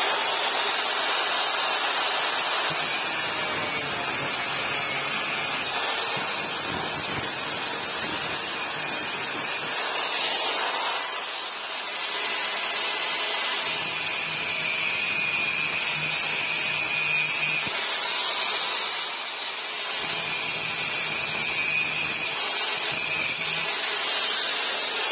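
A power tool running steadily under load, with brief dips in level twice.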